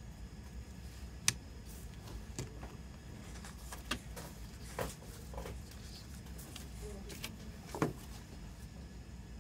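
Plastic CD jewel case being handled: several sharp clicks and light taps at uneven intervals, the loudest about a second in and another near the end, over a low steady hum.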